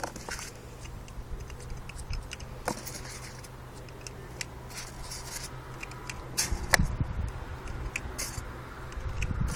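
Scattered light metallic clicks and rattles of a Dan Wesson 4.5 mm CO2 BB revolver being reloaded by hand.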